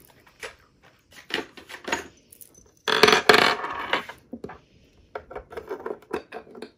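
Metal bolts clinking and rattling as they are picked out of a cardboard hardware pack and set down on a tabletop, with the cardboard rustling. The loudest rattle comes about three seconds in and lasts about a second, followed by scattered small clicks.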